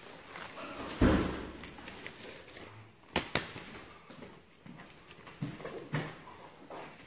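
A single heavy thud about a second in, then a couple of sharp clicks and scattered footsteps and knocks on a hard floor.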